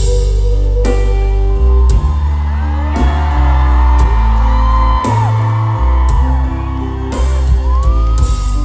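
Loud live concert music from a stage, with heavy bass and a singer's voice holding long notes and sliding up into one near the end.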